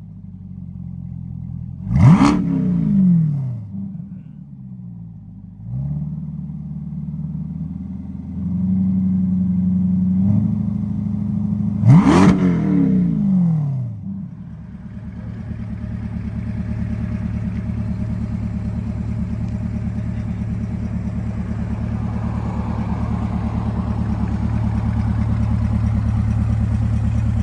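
A car engine revved sharply twice, about ten seconds apart, each rev climbing quickly and falling back, then settling into a steady, pulsing idle.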